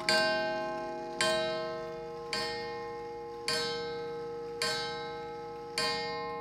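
Antique Welch mantel clock's hammer striking its coiled wire gong to count the hour, six strokes about a second apart, each ringing on and fading into the next. The clock's ticking is faintly heard under the ring.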